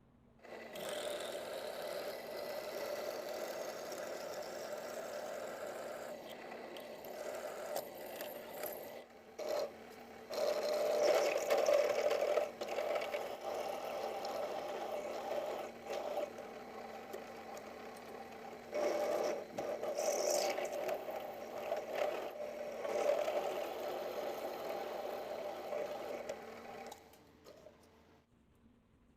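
A power tool's electric motor running for about 26 seconds, its loudness rising and falling as the load changes; it starts about a second in and stops near the end.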